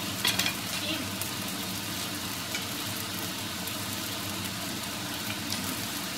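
Egg fried rice with mixed vegetables sizzling steadily in a nonstick pan. A wooden spatula scrapes and knocks against the pan, loudest in a short cluster just after the start, with a couple of lighter knocks later.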